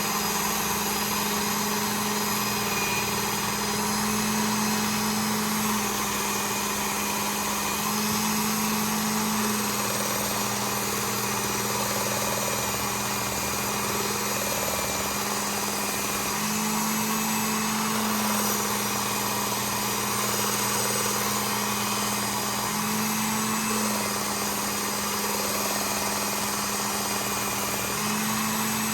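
Work Sharp Ken Onion Elite belt sharpener with the blade grinding attachment running steadily, a knife being honed on its compound-loaded belt. The motor hum shifts slightly up and down in pitch every few seconds.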